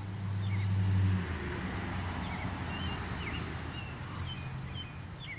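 Low engine hum of a motor vehicle, swelling to its loudest about a second in and then easing into a steady drone.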